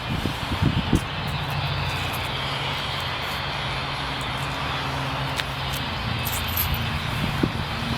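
A steady low motor hum starts about a second in and holds one pitch until near the end, over a constant hiss.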